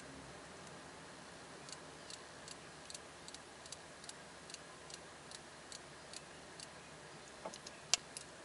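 Small clicks from the crown of a Doxa SUB 1000T Professional dive watch as fingers turn it to set the hands, about two or three a second, with a cluster of clicks and one louder click near the end.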